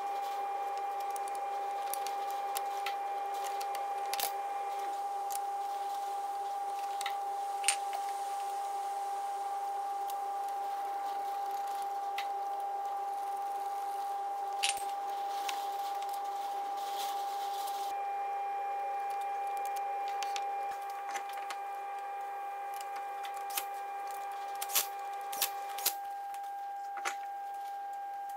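A steady machine hum with a clear pitch, with scattered clicks and clinks of hand tools on metal as the front brake caliper is bolted back on. The clinks come more often near the end.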